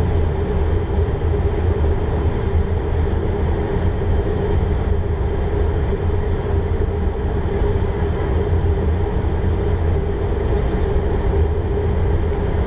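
Steady cockpit noise in a Learjet 60XR on approach: a low, even drone of air rushing over the airframe and its twin turbofan engines, with a steady hum running through it.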